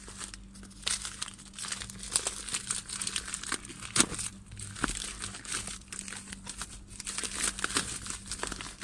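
Packaging crinkling and rustling as it is handled and opened to take out a replacement power window switch, with a sharp click about four seconds in.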